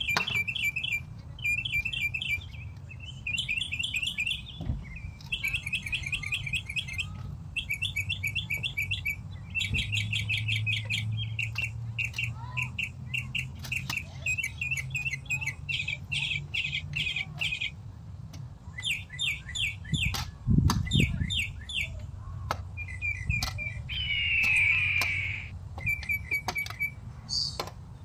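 Small birds chirping in quick, repeated bouts, each about a second long with short gaps between. Under them come a few dull knocks of a shovel digging into soil, the loudest a heavy thump about twenty seconds in.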